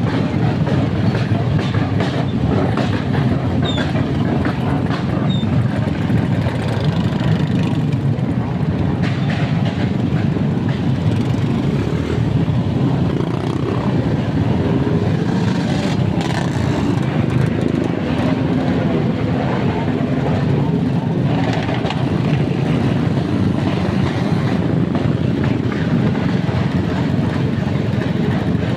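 A motor vehicle's engine running steadily through its exhaust, a loud, even, low rumble with no separate bangs standing out.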